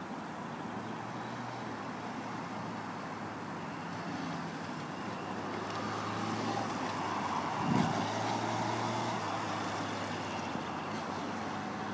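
Motorcycle engine running at low speed as the bike is ridden slowly through tight turns, getting louder as it comes closer. There is a brief thump about eight seconds in.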